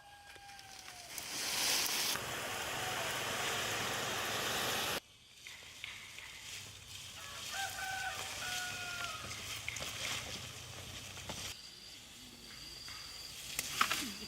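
A rooster crowing: a short falling call just after the start and a longer multi-part crow about seven to nine seconds in, over steady outdoor background noise that changes abruptly a few times.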